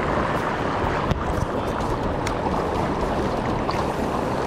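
Shallow, fast-flowing creek rushing over stones close by, a steady rush with a few faint ticks.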